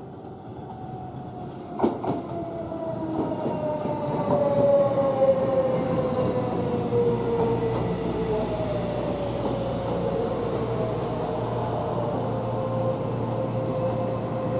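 Electric commuter train pulling in along the platform, its motor whine gliding steadily down in pitch as it slows, over wheel-on-rail rumble, then levelling into a steady whine. A sharp knock comes about two seconds in.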